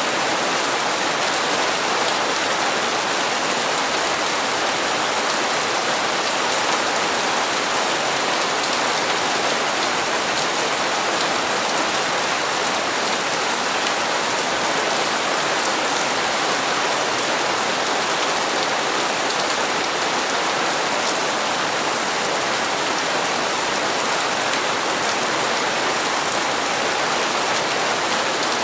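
Steady rain falling on hard surfaces, an even, unbroken hiss of drops.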